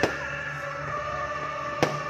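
Two sharp firework bangs, one at the start and one near the end, over music playing.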